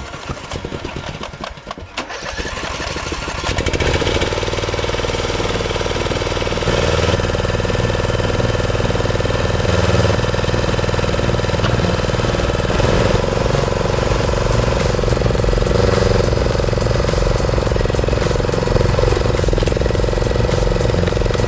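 A machine's engine running steadily, getting louder over the first few seconds and then holding level.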